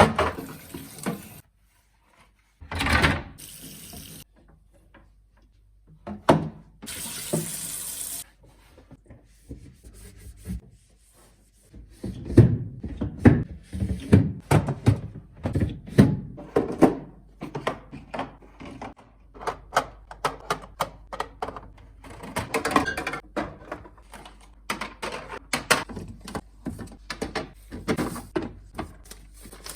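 Water running from a tap in short bursts, then a long run of knocks, clicks and clatter as food containers and items are handled and set down.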